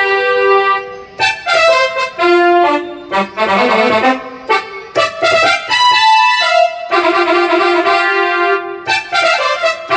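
Music: a melody of held and shorter notes in a trumpet-like brass sound.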